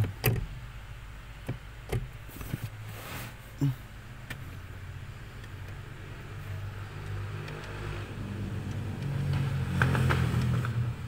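A few sharp metallic clicks and taps from a wrench working the lock nut on the clutch pedal's adjusting bolt under the dash, over a steady low hum that grows louder in the second half.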